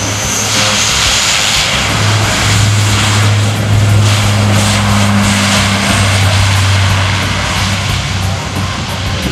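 Lockheed C-130J Hercules turboprops and six-bladed propellers running as the aircraft rolls past on the runway. A steady low propeller hum sits under a broad rush, loudest about four seconds in as it passes closest.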